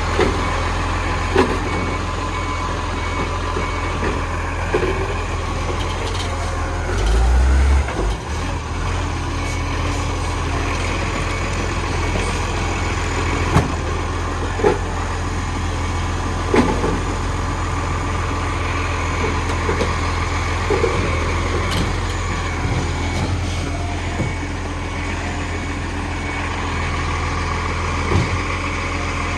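Dennis garbage truck's diesel engine running steadily, with scattered short knocks and clanks. There is a brief louder low surge about seven seconds in.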